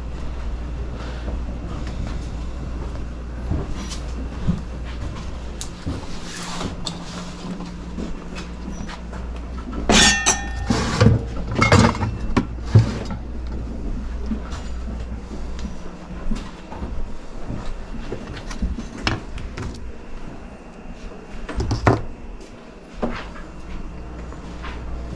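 Steady low rumble with a cluster of sharp clinks and knocks about ten seconds in, some with a brief ring, and another knock near the end.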